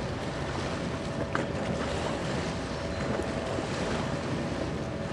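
Steady low rumble and hum from a passing 1949 steam-turbine Great Lakes bulk freighter, with a faint constant tone over it, mixed with wind buffeting the microphone.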